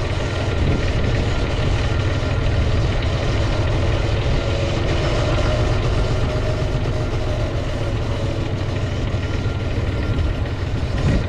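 Farm tractor engine running steadily, close by, with its front loader holding a round bale.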